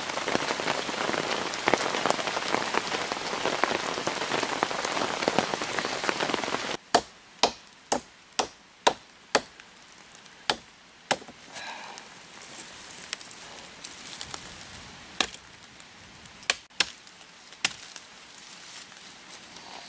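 Steady rain falling for the first seven seconds, cutting off abruptly. Then a knife blade chopping into a vine: six quick strikes about half a second apart, followed by scattered single strikes.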